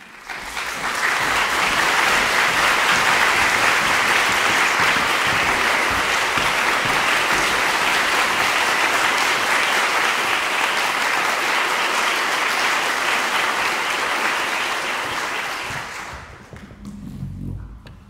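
Concert audience applauding, a dense steady clapping that holds for about sixteen seconds and then dies away.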